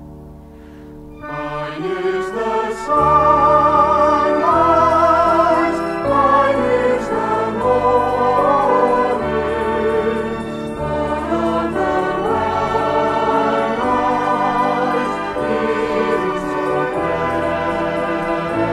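A vocal group singing in harmony with vibrato over instrumental accompaniment. The voices come in loudly about a second in, after a soft keyboard passage.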